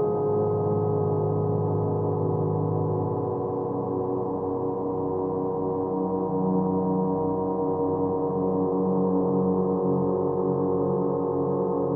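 Ambient background music of sustained, ringing tones held like a drone, with a slow pulsing in the middle tones; a lower tone swells about six seconds in.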